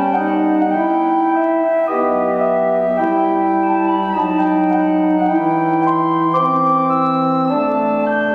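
Organ music: slow, sustained chords that change every second or two over a deep bass line, each note held steady without dying away.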